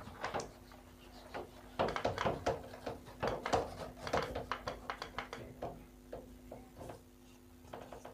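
Whiteboard eraser wiping the board in a quick series of rubbing strokes, which die away about two-thirds of the way through, over a faint steady hum.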